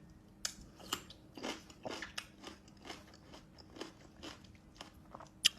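Close-miked chewing of salmon sashimi, an irregular string of short wet clicks and mouth smacks about two a second, with one sharper click near the end.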